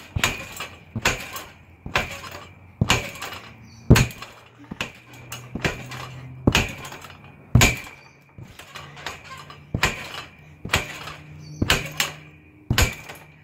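Trampoline knocking with each bounce of someone jumping on it, about once a second.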